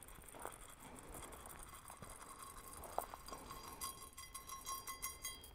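Faint patter of granular organic fertilizer being scattered onto raised-bed garden soil, with a few light clicks. A faint high whine of unclear source comes in about two seconds in and pulses quickly near the end.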